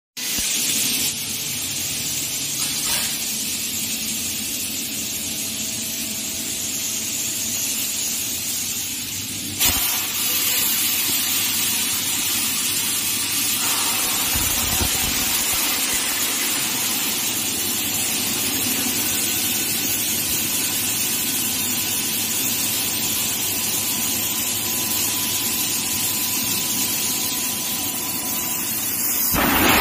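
Bodor 12 kW fiber laser cutter cutting thick stainless steel plate: a steady hissing rush from the cut, heard from outside the machine's closed enclosure. One sharp click about ten seconds in, and the noise grows louder just before the end.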